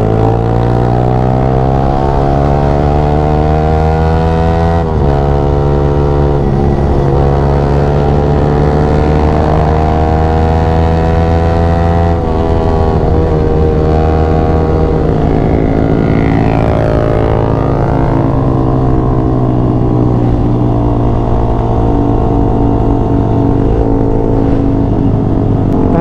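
Yamaha R15 V3's single-cylinder 155 cc engine pulling through the gears: the note climbs, drops sharply on an upshift about five seconds in and again about twelve seconds in, then settles to a steadier cruising note.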